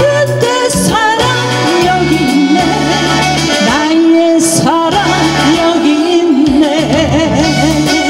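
A woman singing a Korean trot song into a microphone over backing music, holding notes with a wide vibrato, with a steady bass line beneath.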